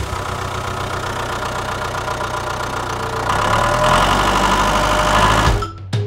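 Tractor engine running steadily, then getting louder about three seconds in as the tractor pulls away, and cutting off just before the end.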